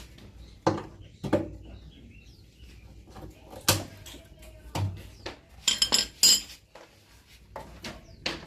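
Metal parts and tools clanking and clinking during the dismantling of a washing machine: a series of separate knocks, with a quick run of ringing metallic clinks about six seconds in.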